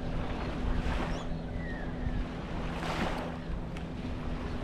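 A boat's motor running steadily on the water, with wind on the microphone and water washing up in swells every couple of seconds.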